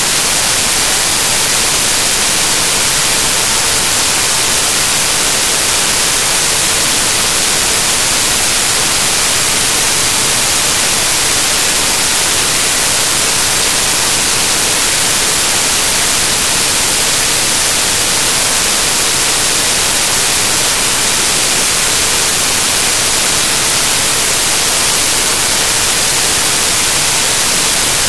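Loud, steady hiss of static spread across all pitches and strongest in the treble, with no speech or other sound through it: the audio of a corrupted recording.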